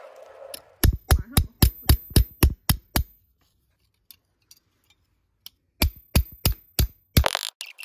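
Small hammer tapping a thin cut copper piece against a metal stake to shape it: a run of about nine light strikes at about four a second, a pause, then four more, with a faint high ring over the strikes.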